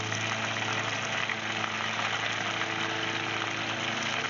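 Breaded perch deep-frying in hot oil in a cast-iron pot: a steady sizzle of bubbling oil, with a low steady hum underneath.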